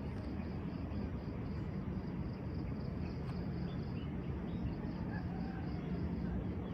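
Insect chirping in a regular pulse, about three a second, over a steady low outdoor rumble, with a few faint bird chirps.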